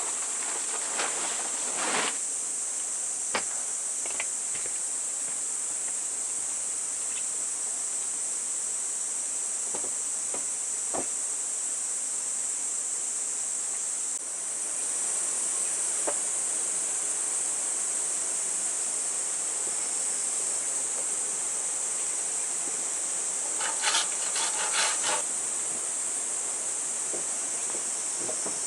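Insects droning steadily at a high pitch, with occasional sharp knocks and a short spell of scraping and rustling about 24 seconds in from work on the wooden deck.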